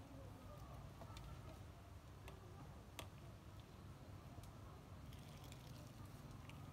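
Quiet background hum with a few light, sharp clicks, from a metal ladle knocking against the soup pot and bowl as soup is ladled out.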